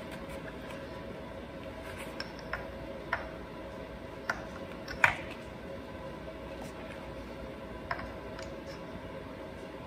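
Scattered light clicks and taps of metal parts and tools as a chainsaw cylinder is worked down over a new piston, the loudest tap about five seconds in, over a steady background hum.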